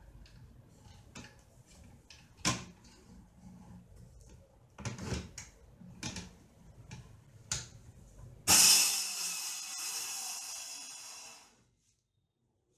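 A few knocks and clicks as a corded circular saw is handled on its aluminium guide rail. About two-thirds of the way in, the saw's motor starts suddenly and runs loudly for about three seconds, fading before it cuts off.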